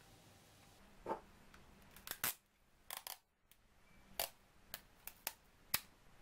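Clear plastic tape dispenser being handled and a strip of sticky tape torn off on its cutter, with folded paper handled: a string of sharp clicks and snaps.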